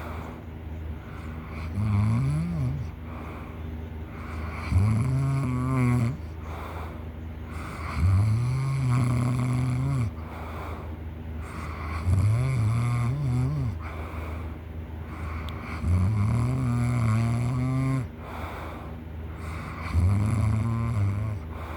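Person snoring loudly, one long snore about every four seconds with quieter breathing between.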